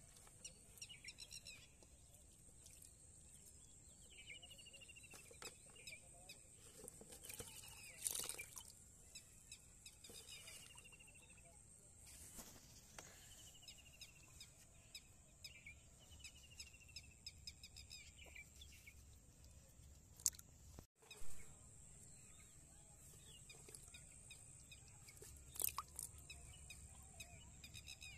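Faint outdoor ambience: a bird repeating a short call that falls in pitch every two to three seconds, over a steady thin high-pitched whine, with a few sharp clicks.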